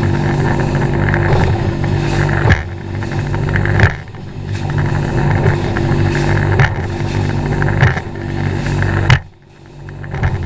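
Champion bass boat running at speed on choppy water, its outboard engine humming steadily under the rush of water, with the hull slapping hard into waves about four times.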